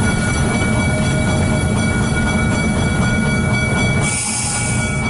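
GE 70-ton diesel switcher locomotive heard from inside its cab, the engine running with a steady low rumble and a steady high whine as it rolls slowly along the track. About four seconds in, a short burst of hiss lasts about a second.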